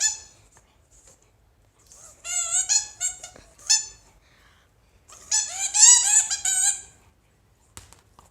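German Shepherd puppy squeaking and whining: short, high, wavering squeals in two runs, one about two seconds in and a longer one about five seconds in.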